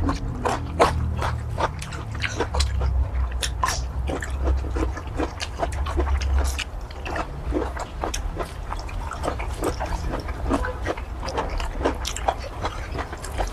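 Close-miked chewing of squid in curry: a run of irregular wet mouth clicks and smacks over a low steady hum.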